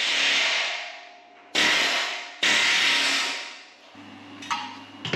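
A swoosh transition, then two short bursts of a power tool working on the steel frame, each starting abruptly and winding down.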